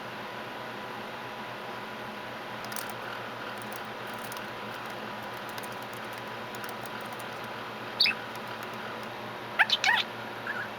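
Budgerigar giving short chirps: one about eight seconds in, then a quick cluster of several near the end, over a steady background hum. A few faint ticks come about three seconds in.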